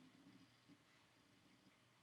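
Near silence: a pause in the narration with only faint room tone.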